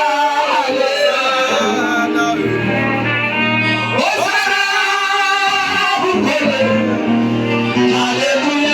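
Gospel worship song: a voice singing long, held notes over steady instrumental backing.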